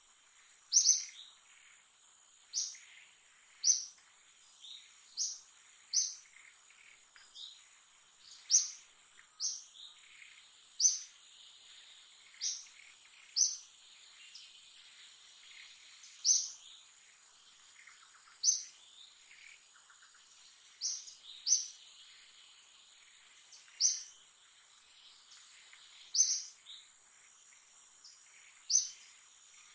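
A bird calling with short, sharp, high chirps, repeated every second or two, over a steady high-pitched insect drone.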